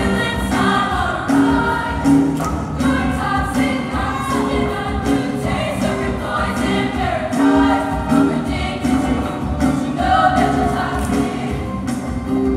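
Music with a group of voices singing over a steady beat.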